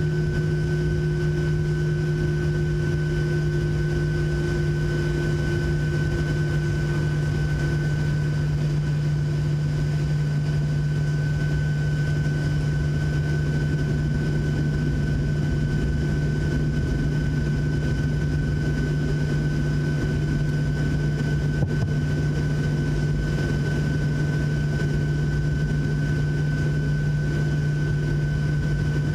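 A Boeing 737-700's CFM56-7B jet engines heard from inside the cabin: a steady drone with a constant high whine, holding one pitch throughout.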